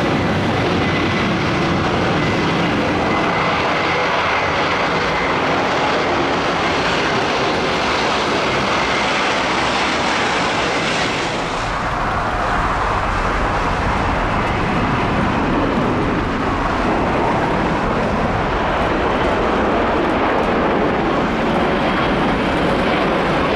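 Boeing 747's four jet engines running with a steady, wide rush and a faint high whine over the first few seconds. About halfway through the higher part of the sound fades and a deep rumble grows.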